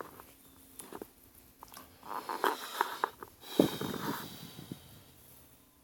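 Close handling noise: a sharp click about a second in, then rustling and a louder scraping burst past the middle, as objects are moved right by the microphone.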